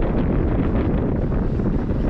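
Wind buffeting the camera's microphone: a steady, loud low rumble with no break.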